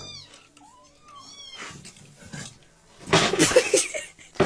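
A domestic cat meowing a few times in short high-pitched calls that rise and fall, then a louder noisy burst about three seconds in and a sharp knock near the end.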